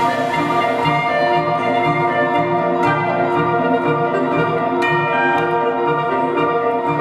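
A live band plays an instrumental passage over a steady, pulsing low line. Two struck, ringing notes come in about three and five seconds in.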